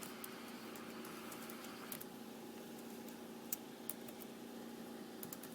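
Faint steady electrical hum from the scanner recording while the radio is squelched between transmissions, with a few faint clicks near the middle.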